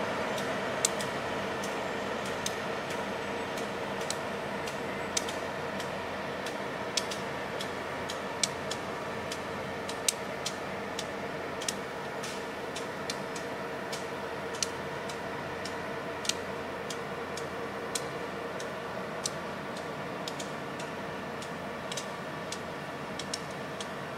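Diesel-hauled passenger train rolling slowly past, its wheels clicking over rail joints at irregular intervals, about one click a second, above a steady mechanical hum from the train that slowly fades as it draws away.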